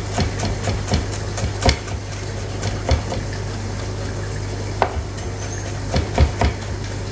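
Chef's knife chopping fresh coriander on a plastic cutting board: irregular knocks of the blade against the board, a few a second, over a steady low hum.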